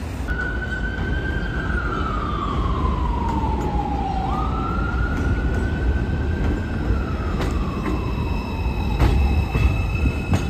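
An emergency vehicle's siren wailing: each cycle climbs quickly, holds, then slides slowly down, about two and a half cycles in all. About two-thirds of the way in, a steady high whine from a subway train pulling in joins it, with a few sharp clicks.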